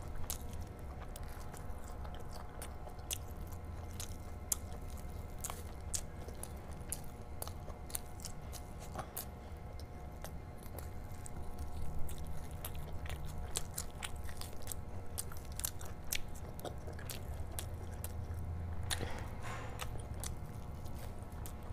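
Close-miked chewing of hand-eaten rice and curry, with many small mouth clicks and smacks; about ten seconds in, a bite from a curried chicken leg. A steady low hum runs underneath.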